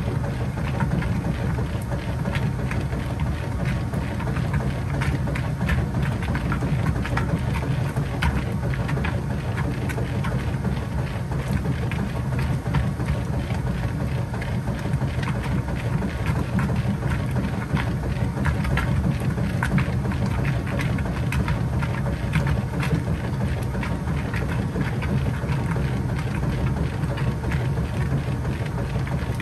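Kenmore 80 Series top-load washing machine agitating during its deep rinse: a steady low motor and transmission hum with water sloshing in the tub.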